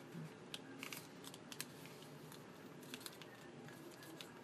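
A sheet of paper being folded and creased by hand against a desk: faint rustling with scattered soft crackles.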